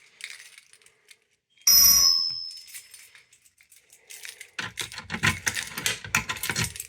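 A Simplex 2099 fire alarm pull station being pulled: a sharp metallic clank with a brief bright ring about two seconds in. Near the end comes a couple of seconds of clicking and rattling as it is worked with a key to reset it.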